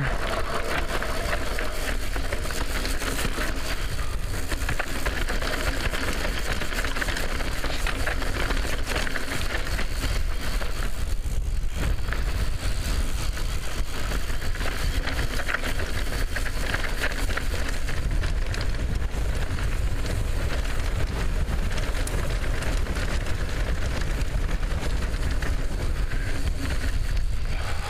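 Wind rushing over the helmet camera's microphone, with tyres running over dry, rough dirt singletrack and the mountain bike rattling as it rolls downhill.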